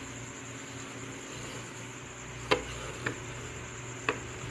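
Three sharp, irregularly spaced clicks from a mechanical microwave oven timer being handled, over a steady faint hum and hiss.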